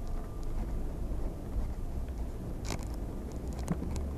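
Low steady rumble of a motorized bicycle with a small four-stroke brush-cutter engine being ridden, heard from a camera mounted on the bike. Two sharp clicks or rattles come from the bike, about three seconds in and again a second later.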